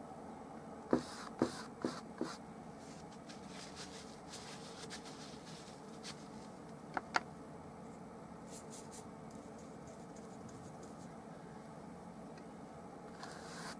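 Large flat brush working oil paint on a small canvas, faint scratchy strokes over a steady low room hum, with light knocks: four in quick succession about a second in and two close together about seven seconds in.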